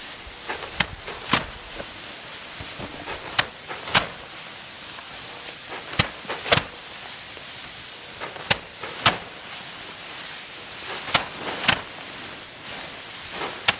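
About a dozen sharp strikes at irregular intervals, over a steady hiss, from hand-harvesting rice paddy.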